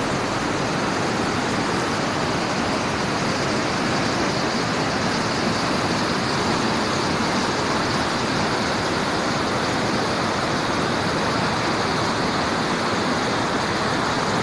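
Muddy floodwater rushing and churning over rocks in a stream swollen by heavy rain, a steady, unbroken rushing noise.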